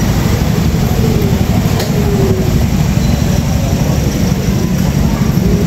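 Car engines running close by, a steady low rumble with no break.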